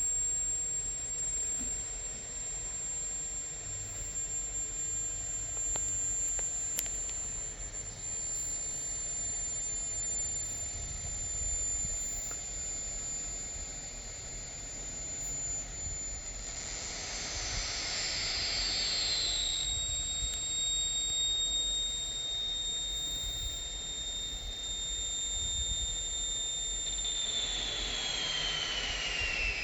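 High-pitched electronic whine picked up by a voice recorder's amplified microphone, over steady hiss. The single thin tone holds steady, then twice glides smoothly down to a lower pitch and settles there, once past the middle and again near the end.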